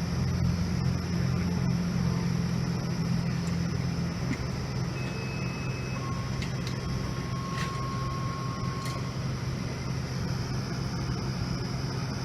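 Fire truck engines idling with a steady low hum. A thin high tone sounds briefly about five seconds in, then a lower tone is held for about three seconds.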